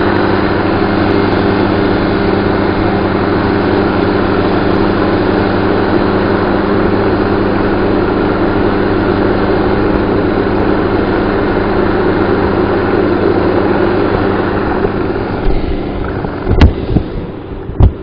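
Helicopter engine and rotor running with a steady hum, picked up by a camera sealed in a plastic container; the hum fades away near the end, followed by two sharp thumps.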